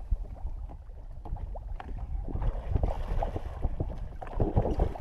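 Water sloshing and splashing beside a small boat's hull, over a steady rumble of wind on the microphone, with a few light knocks; the splashing picks up about halfway through and again near the end.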